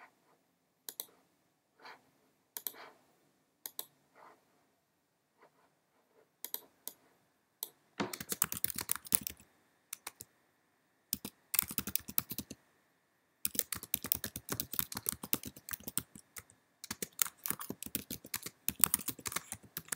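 Typing on a computer keyboard: a few scattered clicks at first, then quick bursts of keystrokes from about eight seconds in, with short pauses between them.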